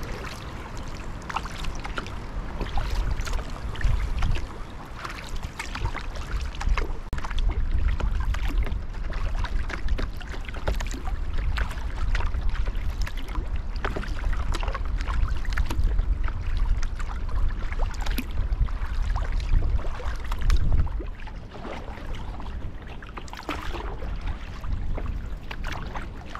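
Double-bladed kayak paddle strokes splashing and dripping in the water beside the hull, with water lapping against the kayak, over a steady low rumble.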